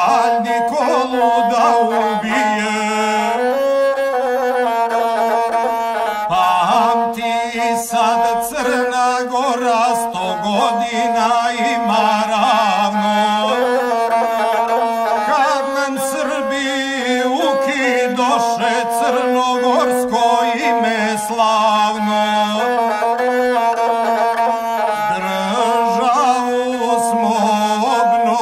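Gusle, the bowed single-string Balkan folk fiddle, playing an instrumental passage between sung verses: a continuous, wavering, ornamented melody.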